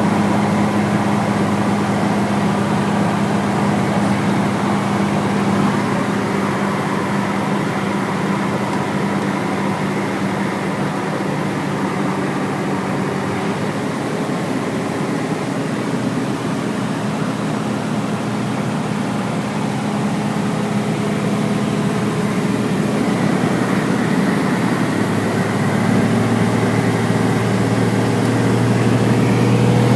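Light aircraft's piston engine and propeller droning steadily in flight. About 25 seconds in the engine note shifts and grows slightly louder, as with a change of power.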